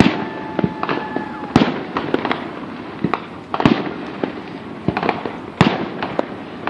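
Aerial fireworks shells bursting, a sharp bang about every second with smaller crackles between, and a steady whistle through the first second and a half.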